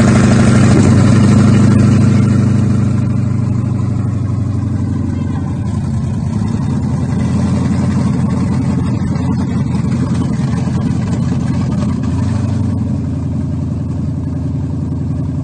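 Freshly rebuilt Ford Coyote 5.0 V8 in a Mustang running after its rebuild. It is a little louder for the first couple of seconds, then settles into a steady idle.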